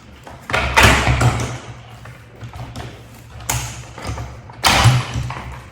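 Handling noises from a cordless vacuum's parts as a piece is taken off: a few knocks and rustles, loudest about a second in and again near the end.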